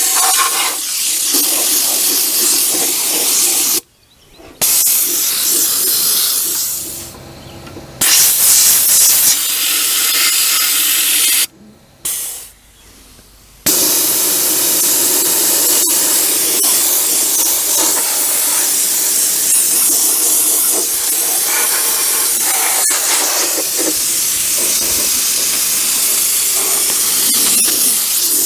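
High-pressure spray hissing against a metal part to strip paint, stopping briefly a few times as the trigger is released and starting again.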